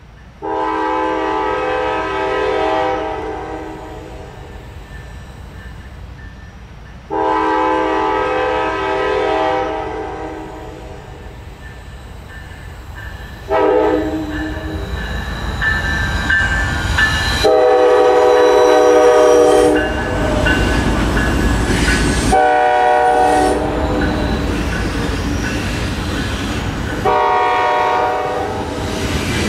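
CSX diesel freight locomotive horn sounding two long blasts, a short one, then further long blasts: the grade-crossing signal. Under the later blasts the locomotive's engine rumble and the wheel clatter of the passing train grow louder.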